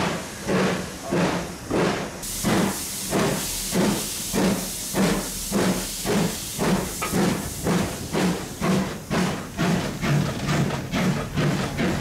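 BR Standard Class 2 2-6-0 steam locomotive 78022 working hard, its exhaust beating in regular chuffs about two a second that quicken slightly as it gathers speed, with a steam hiss joining from about two seconds in.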